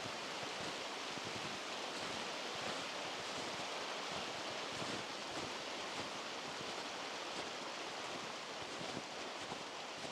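Steady rushing of a fast-flowing mountain stream, an even hiss with no let-up.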